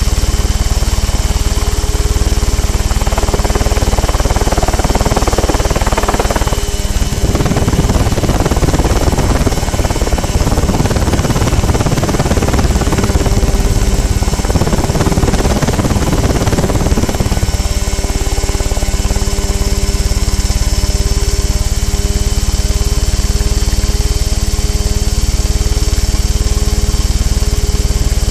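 Mosquito ultralight helicopter in flight, its engine running steadily at flight power. From about three to seventeen seconds in, wind buffets the outboard camera's microphone over the engine.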